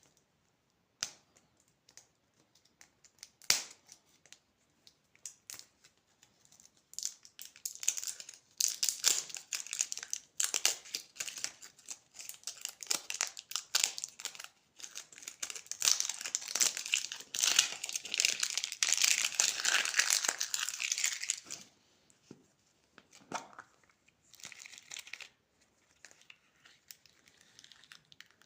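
Plastic candy wrappers being handled and torn open: scattered sharp crackles at first, then a long stretch of dense crinkling and tearing, thinning out to a few short crinkles near the end.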